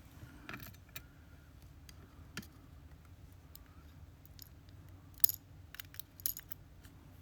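Small metallic clicks and taps of tweezers and tiny lock pins while pins are taken out of a disassembled ASSA Twin Exclusive lock cylinder: sparse light ticks, a sharper click about five seconds in, then a few quick ticks.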